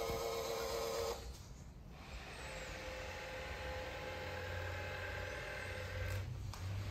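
Robot mop running: a steady motor whir that breaks off about a second in and picks up again, with a low hum joining partway through.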